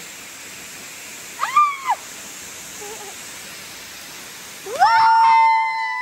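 Steady rush of a waterfall pouring into a swimming pool. About a second and a half in comes a short high cry that rises and falls. Near the end a long, loud, held high cry starts.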